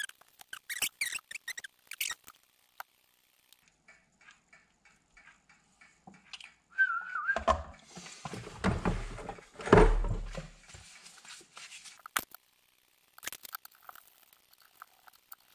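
Hand assembly of a small plastic RC gearbox (transfer case): scattered light clicks and taps of small parts and tools. About seven seconds in comes a brief wavering whistle-like note, followed by a few seconds of louder rustling and rubbing handling noise, then more small clicks near the end.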